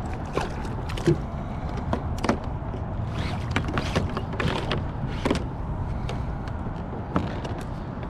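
Irregular clicks and knocks of handling on a plastic pedal fishing kayak, the sharpest about a second in, over a steady low background rumble.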